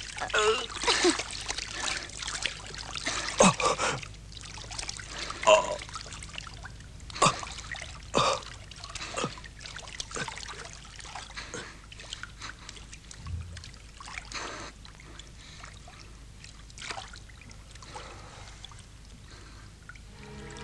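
Water splashing and dripping: a busy run of splashes for the first few seconds, then single splashes and drips that come further apart and grow fainter toward the end.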